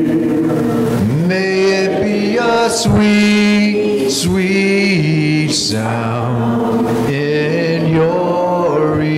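Slow singing of a hymn, with long held notes that glide between pitches.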